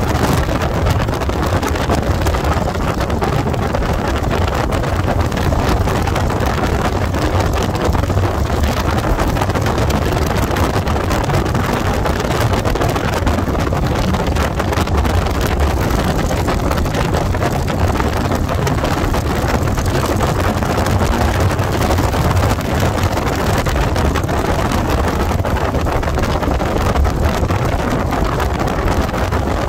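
Harley-Davidson Fat Bob 114's V-twin, fitted with an S&S cam, running steadily at highway cruising speed, a low rumble mixed with heavy wind rush on the phone's microphone.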